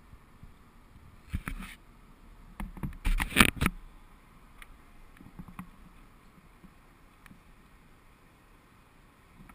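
Handling noise on a hand-held GoPro camera: knocks and rubbing against the housing in two bursts, one about a second and a half in and a louder one around three seconds in, then a few faint ticks.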